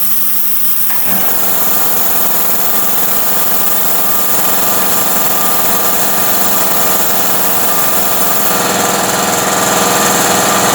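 ArcDroid CNC plasma cutter running a cut: a steady hiss of air and arc with a buzzing hum, which grows fuller about a second in. The cut is at a feed rate of 67, which is too fast for this thick plate.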